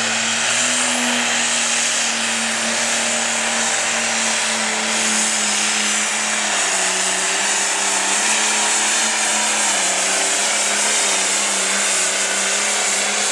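Diesel engine of a light pro stock pulling tractor running flat out under load as it drags the weight sled. The note is one steady tone that sags slightly in pitch about halfway through, then wavers.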